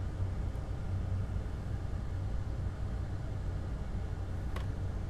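Steady low hum with a hiss, even throughout, from running workbench equipment. A single faint click comes about four and a half seconds in.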